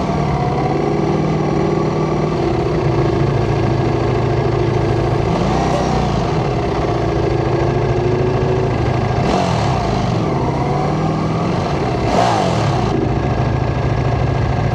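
Ducati Panigale V4 motorcycle's V4 engine running at low revs in slow traffic, with a few brief rises and falls in pitch.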